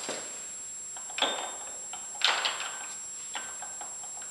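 Metal clinks of lathe change gears being handled and fitted on the gear train: four sharp knocks, the loudest about a second and two seconds in, each with a short metallic ring.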